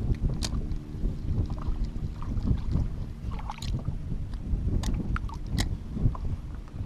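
Wind buffeting the microphone over a low rumble on a small fishing boat on open water, with a few short high-pitched sounds scattered through it.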